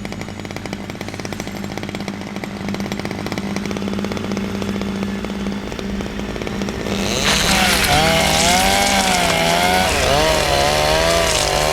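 Two-stroke chainsaw running at low throttle, then revving up hard about seven seconds in; under full throttle its pitch wavers up and down.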